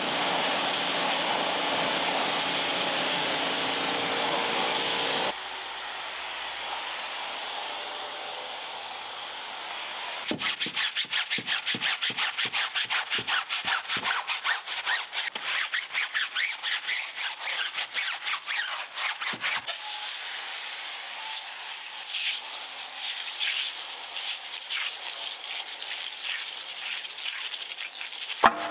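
A steady whirring of a motorised cleaning machine that cuts off after about five seconds. Then a stiff detailing brush scrubs in fast, even strokes, about four a second, followed by slower rubbing and scrubbing.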